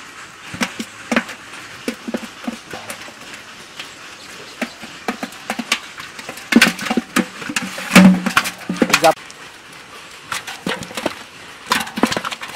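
Fish being worked out of a nylon cast net by hand: scattered slaps, knocks and net rustling, busiest and loudest about halfway through.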